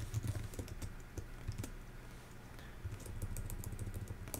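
Typing on a computer keyboard: a run of irregular key clicks, with a short lull about halfway through.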